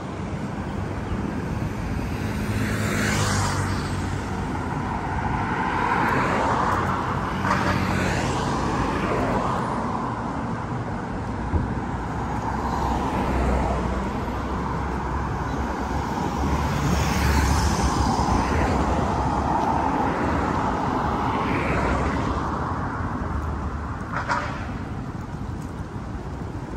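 Road traffic on a multi-lane city road: a steady hum of engines and tyres, with several cars swelling past one after another every few seconds.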